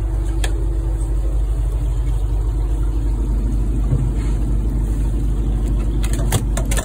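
Fishing boat's engine running steadily at idle, a constant low hum, with a few sharp clicks near the end.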